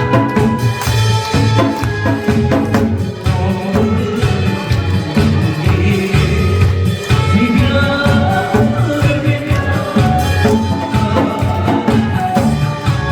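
Korean janggu hourglass drums played along to an upbeat medley of recorded music, with the drums striking a steady beat under a sustained melody.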